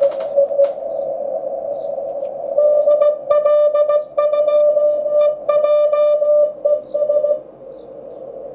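Morse code (CW) signal from a shortwave receiver, played through the Daiwa AF-606K active audio filter: a steady mid-pitched tone keyed in dots and dashes. It sits over hiss narrowed to a band around the tone and stops about seven seconds in, leaving only the hiss.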